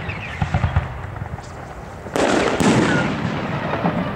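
A 4-inch golden titanium willow aerial shell bursting with a sharp bang about two seconds in, a second bang following half a second later.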